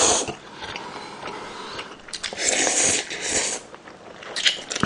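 A person slurping instant ramyeon noodles out of soup: one slurp ending just after the start and a longer one about two seconds in, then a few short wet clicks near the end.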